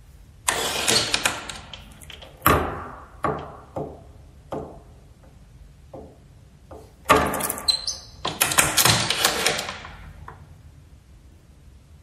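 A door chain lock rattling and clicking: a burst of chain rattle about half a second in, then a string of separate sharp clicks, then a longer spell of rattling from about seven to ten seconds in.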